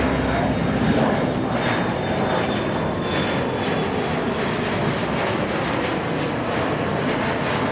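Airplane engines running, a steady rushing noise without breaks.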